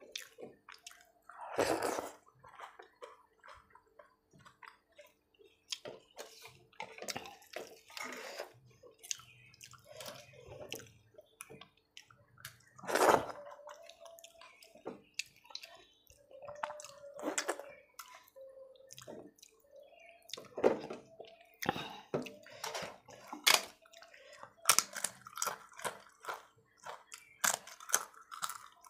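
Eating by hand from a steel plate: fingers squelching and mixing wet rice and sour dal, with chewing and irregular sharp clicks and scrapes. The loudest of these comes about halfway through.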